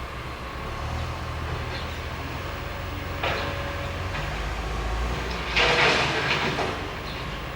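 Loud mechanical noise: a steady low rumble, with a sudden sharp noise about three seconds in and a louder hissing burst lasting about a second near the end.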